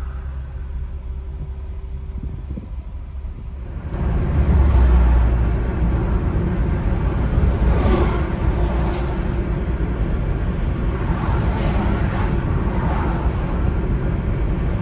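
Cabin noise inside a Nissan Leaf ZE0 electric car in slow highway traffic. There is a low steady hum at first; about four seconds in it jumps suddenly to a louder, steady rushing road noise that lasts to the end.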